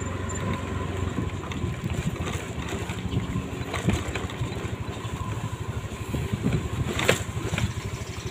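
Small motorcycle engine running steadily as it rides over a rough, potholed dirt road, with a few sharp knocks and rattles from the bumps, the loudest about four and seven seconds in.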